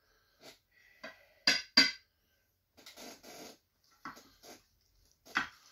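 Metal spatula scraping and tapping in a foil-lined baking pan as a slice of meatloaf is lifted out. Two sharp clicks come about a second and a half in, then softer scrapes and rustles against the thin aluminium foil.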